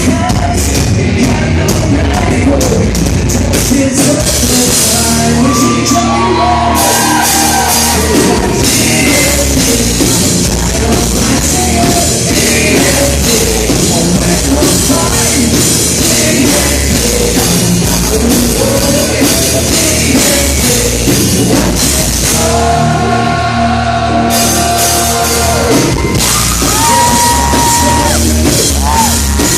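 Live hard rock band playing loud in a large club: distorted guitars, drum kit and a singer, heard through the room.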